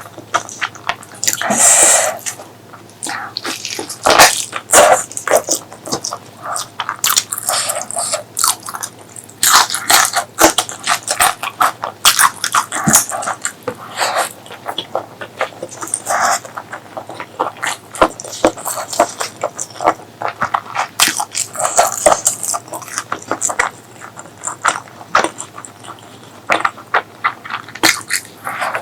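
Close-miked mouth sounds of eating pork leg curry with rice: wet chewing and lip-smacking in quick, irregular clicks.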